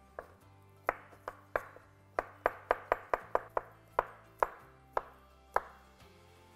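Chef's knife dicing smoked tofu on a bamboo cutting board: about fifteen sharp knocks of the blade hitting the wood at an uneven pace, stopping about a second before the end. Faint background music underneath.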